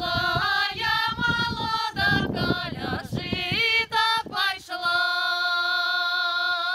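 A group of women singing a Belarusian folk song unaccompanied. They finish the phrase on one long held note over the last two seconds.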